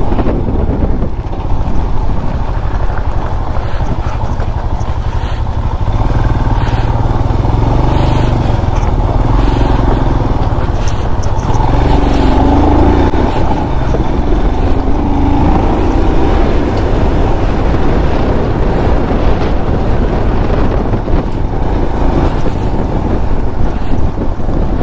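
Motorcycle engine running on a loose gravel track, with wind rushing over the microphone; the engine note rises and falls around the middle as the bike accelerates alongside a car.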